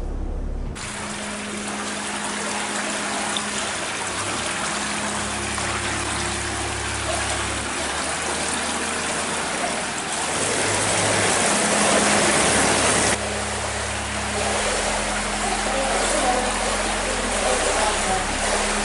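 Steady rush of running water in an indoor swimming pool, with a faint low hum beneath it. It starts under a second in, grows louder, then drops and changes character suddenly about 13 seconds in.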